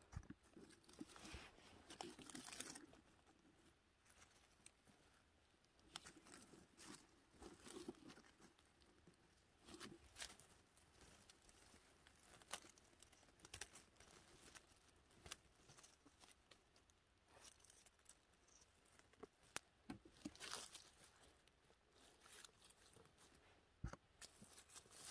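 Faint, scattered rustling and crackling of forest undergrowth, with many small snaps and clicks, as someone moves through low bushes and picks mushrooms.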